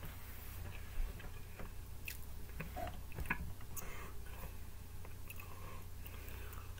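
A person chewing pizza, with scattered small wet clicks and crackles of mouth sounds and a bite into the slice near the end, over a low steady hum.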